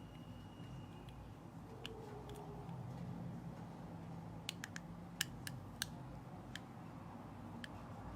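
Slime being handled, faint, with scattered small sharp clicks and pops and a quick cluster of them about five seconds in.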